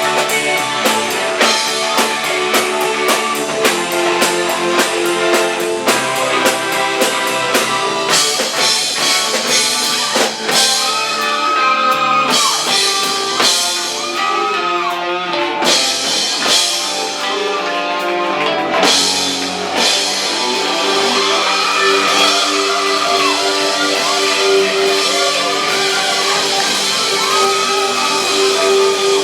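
A rock band playing live: electric guitar over a drum kit, with a lead guitar line of bent notes rising and falling in the second half.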